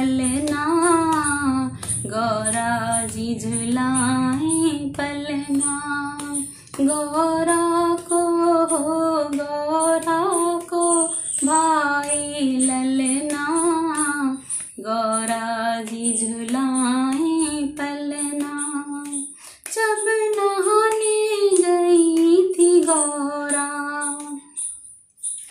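A woman singing a Hindi devotional bhajan solo in a lullaby-like melody, phrase after phrase with short breaks between lines. A light, high ticking beat repeats steadily behind the voice.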